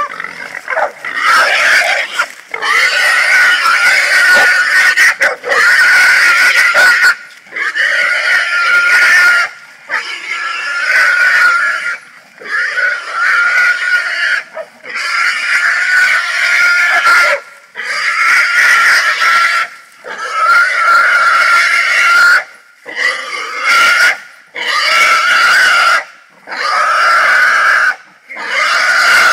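Wild hog caught and held down, screaming loudly in long squeals, a dozen or so in a row, each a couple of seconds long with short breaks for breath between.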